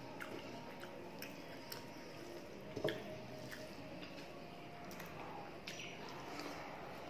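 Bare fingers mixing rice and chicken curry on a plate, with close-up chewing and lip smacks: soft wet squishes and scattered small clicks, one a little louder about three seconds in.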